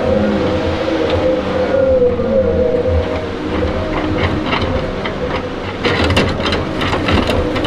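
Tigercat 234B knuckleboom log loader working: its diesel engine and hydraulics run with a steady whine over a low rumble. Short knocks of the grapple and logs come through it, most of them clustered near the end.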